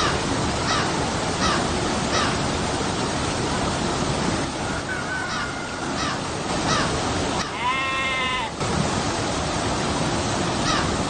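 River water rushing steadily over rocks and small falls. A crow caws in runs of short calls, at the start, in the middle and near the end. A single drawn-out animal call with many overtones comes about eight seconds in.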